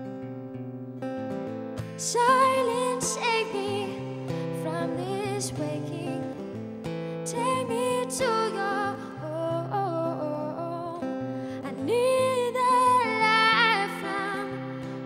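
A woman singing a slow song, accompanying herself on a strummed acoustic guitar, in sung phrases of a few seconds each over held chords.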